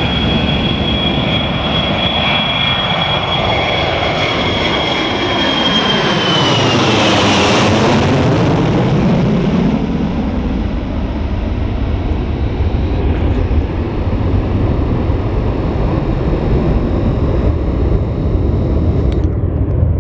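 Ilyushin Il-76TD's four turbofan jet engines at takeoff power as the freighter climbs out overhead. A high turbine whine drops in pitch as it passes about seven seconds in, then a heavy rumble carries on as it flies away.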